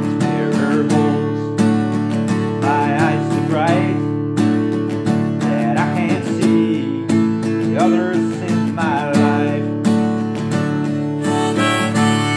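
Steel-string acoustic guitar strummed in a steady rhythm, with a harmonica coming in near the end.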